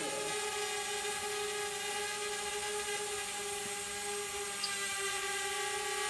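Steady whine of a quadcopter camera drone's propellers while it hovers, several even pitches held with a slight waver.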